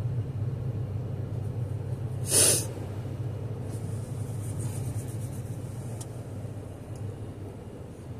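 Steady low drone of a car idling, heard from inside the cabin while stopped, with one short loud rush of noise about two seconds in.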